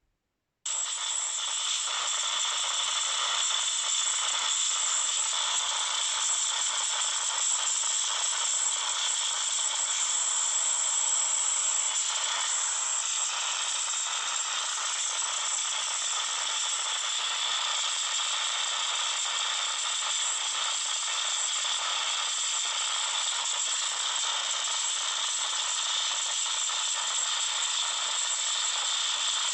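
Samsung Galaxy Note 9 loudspeaker putting out a steady, harsh, high-pitched static hiss that cuts in suddenly just after the start. This is the phone's random speaker fault noise, which the owner says only a reboot stops.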